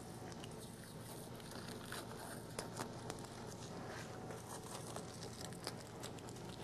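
Double-sided tape being peeled off by hand: faint, irregular crackling and crinkling with scattered small ticks, a few sharper ones about halfway through.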